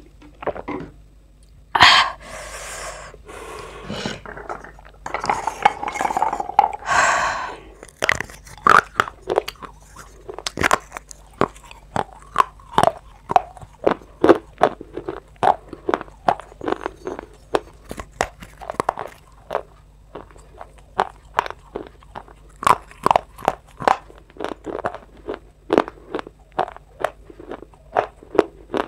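Dry clay crunching close to the microphone as it is bitten and chewed. A few longer crumbly crunches come in the first seconds, then sharp crisp crunches about twice a second.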